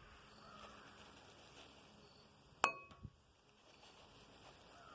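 A thrown fuseless impact firecracker hitting the bowl of 9mm cartridges: one sharp snap about two and a half seconds in, with a brief ringing clink from the bowl, then a soft knock.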